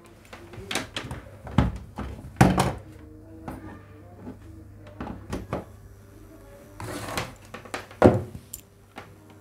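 Handling knocks and thunks as cables are plugged into an audio mixer in a metal-edged case, with a few louder knocks, the loudest about two and a half seconds in and near the end. A steady low electrical hum runs underneath.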